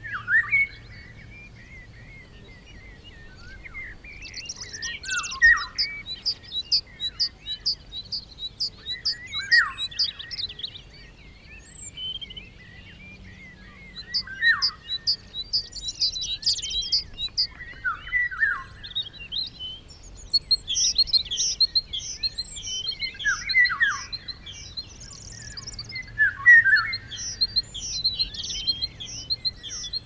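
Several songbirds singing in overlapping phrases of quick repeated chirps, short trills and falling whistles, with brief lulls between bursts.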